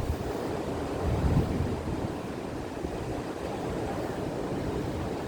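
Gusty wind buffeting the microphone: an uneven low rumbling rush that swells briefly about a second in.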